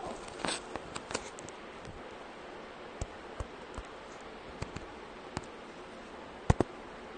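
Irregular light taps of fingertips typing on a phone's touchscreen keyboard, over a steady hiss, with a louder pair of taps near the end.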